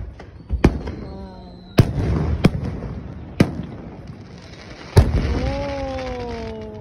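Aerial fireworks shells bursting overhead: a series of sharp bangs, the loudest about five seconds in, with crackling after the bigger bursts.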